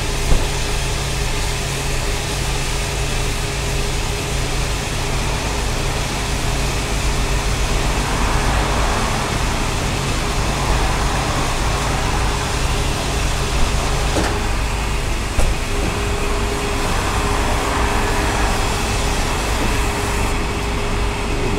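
LPG dispenser pump running steadily while it fills a refillable gas bottle, a constant hum and hiss of gas flow, with a few small clicks.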